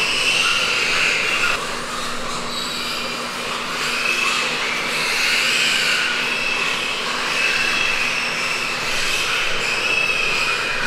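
Many weaned piglets squealing together, a continuous high-pitched chorus that swells and fades, with a faint steady hum underneath.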